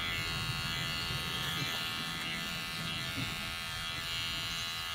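Electric hair clippers buzzing steadily while cutting hair.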